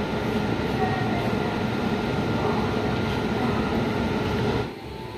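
Indian Railways electric locomotive running light, approaching slowly: a steady rumble and hum from the moving engine. The sound drops away suddenly near the end.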